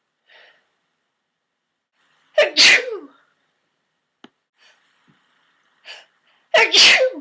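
A woman sneezing twice, about four seconds apart, each a loud, abrupt 'achoo'. They are part of a fit of repeated sneezes brought on by eating mints. Faint breathing and a small click come between the two.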